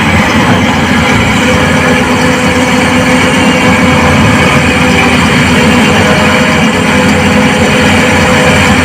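Heavy diesel engine of the excavator or dump truck running steadily at constant speed, with no pauses or changes in pitch.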